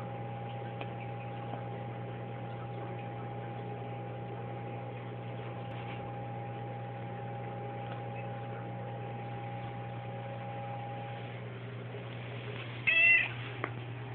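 Domestic cat meowing once, a short loud call near the end, over a steady low electrical hum.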